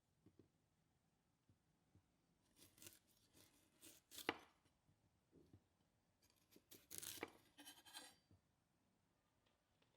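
Quiet cutting sounds from food preparation: two clusters of short, crisp cuts, the sharpest about four seconds in.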